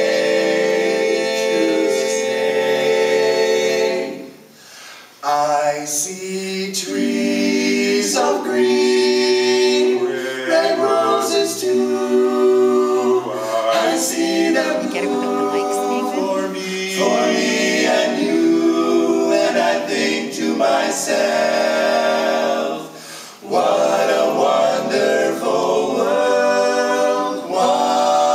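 Male a cappella vocal quartet singing in harmony, with a short break between phrases about four seconds in and another near the 23-second mark.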